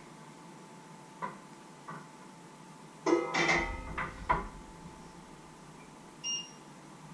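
Stainless-steel pots and lids clanking and ringing as they are handled and set down on a glass-ceramic hob, after a couple of light clicks. Near the end, a short electronic beep from the hob's touch controls.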